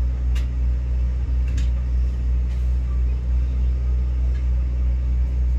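Engines of asphalt-paving machines, a small ride-on road roller and an asphalt paver, running with a steady low drone. A few faint clicks sound over it.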